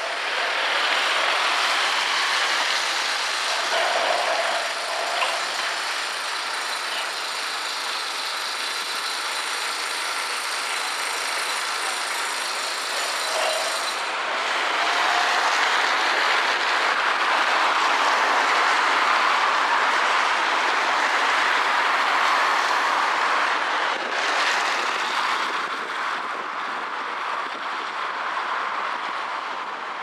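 Road traffic passing, a continuous rushing noise that swells about halfway through and eases off near the end.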